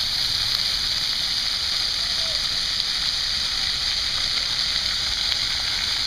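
Splash pad ground jets shooting water up and splashing back onto the wet concrete: a steady hiss.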